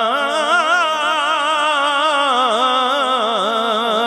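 A man's solo voice singing a devotional salawat or naat into a hand microphone. It holds one long vowel and winds it through fast, wavering turns of pitch, with no instruments.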